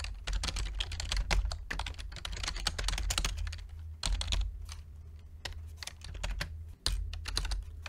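Typing on a computer keyboard: rapid, uneven runs of key clicks with brief pauses, over a low steady hum.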